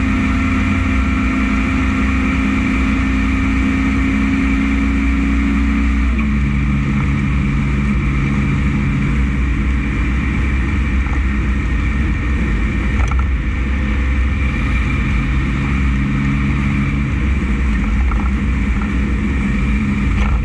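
Dump truck's diesel engine running steadily under way; its note steps down about six seconds in.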